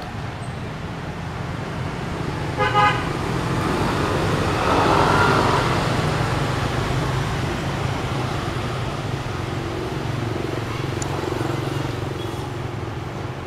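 Diesel locomotive hauling fuel tank wagons, rolling slowly with a steady low engine rumble. A short horn toot sounds about three seconds in, and a rushing noise swells and fades around the middle.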